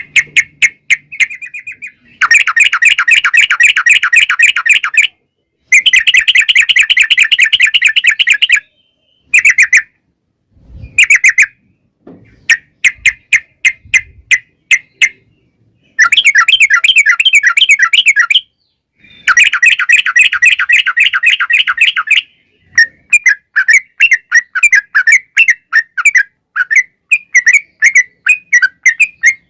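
Yellow-vented bulbul (trucukan) singing in long, rapid runs of chattering notes, the ‘ropel panjang’ style, broken by short pauses, with shorter choppy phrases toward the end.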